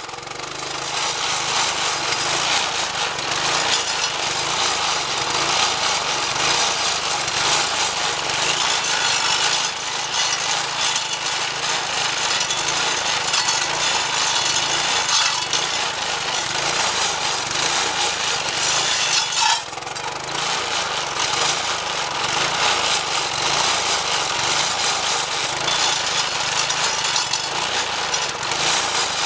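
Homemade stump grinder, a Briggs & Stratton 4.5 hp vertical-shaft edger engine, running under load while its 10-inch carbide-tipped saw blade grinds into a hard mulberry stump, a steady rasping of wood being chewed over the engine. The cutting noise dips briefly about two-thirds of the way through.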